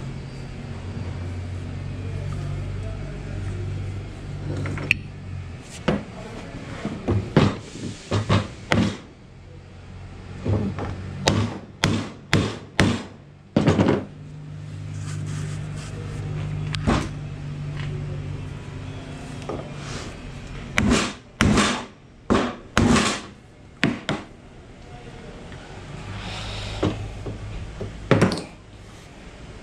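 Claw hammer striking, driving nails into a wooden strip on a door frame, in several quick runs of sharp blows with pauses between. A low steady hum comes and goes in the pauses.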